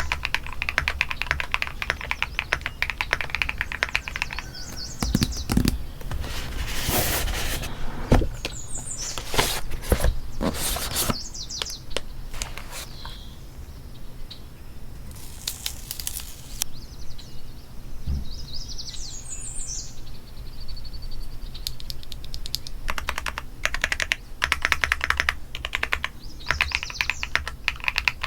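Typing on a custom mechanical keyboard: fast runs of keystroke clicks at the start and again near the end, with a few louder, longer noisy bursts in the middle.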